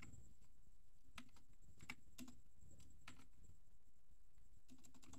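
Faint keystrokes on a computer keyboard: a handful of separate, spaced-out clicks.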